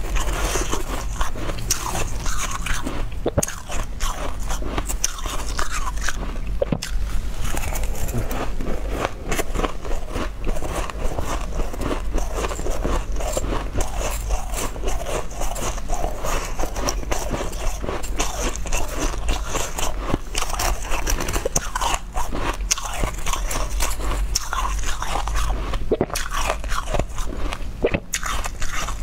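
Crushed ice being crunched and chewed close to a clip-on microphone: a continuous, dense crackle, with a metal spoon digging through the ice in the bowl.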